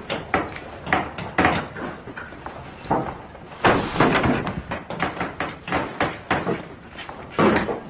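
Carpentry workshop ambience: an uneven run of knocks, thumps and clatters of wood and tools, several a second, with heavier bangs about midway and near the end.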